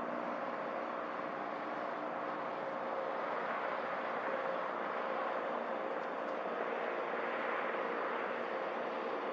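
A steady mechanical hum over an even rushing noise, with one constant tone that holds the same pitch throughout.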